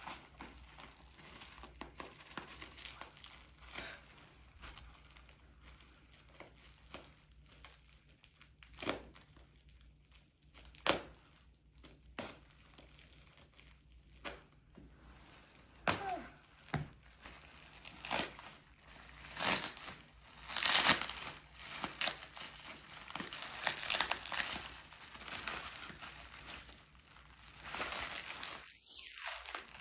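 Plastic bubble wrap crinkling and rustling as it is cut with scissors and pulled open, with a few sharp clicks. The crinkling gets louder and busier in the second half.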